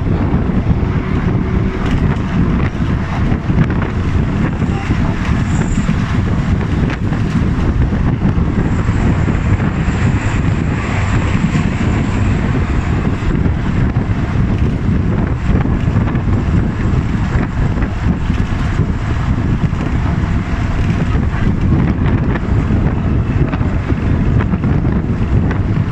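Wind rushing over the phone's microphone with the road noise of a car driving at speed on a highway, a steady, loud rumble with no letup.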